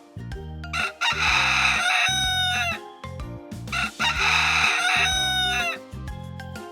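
Rooster crowing twice, each crow about two seconds long and falling in pitch at its end, over light background music.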